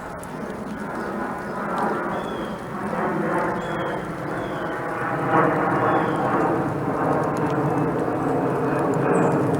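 A distant engine drone that swells steadily louder, with a few short, high bird chirps over it.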